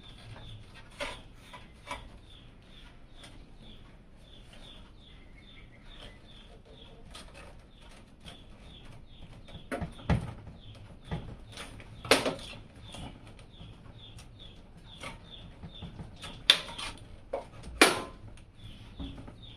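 Scattered sharp plastic clicks and knocks of hands working a PC case's front panel loose, the loudest about halfway through and near the end. A faint high chirp repeats a little over twice a second throughout.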